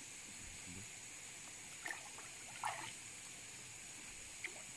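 Faint water sloshing and trickling around a person wading waist-deep in a creek pool, with a few brief small splashes about two, three and four and a half seconds in, over a steady faint high hiss.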